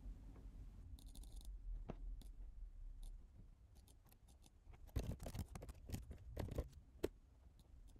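Faint computer keyboard typing and clicks: a quick run of sharp clacks about five to seven seconds in, over a low room hum.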